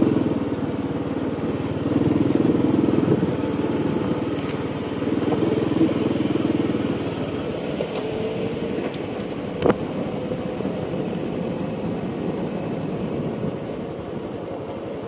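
A motor vehicle's engine running, swelling louder twice in the first seven seconds and then easing off, with a sharp click about ten seconds in.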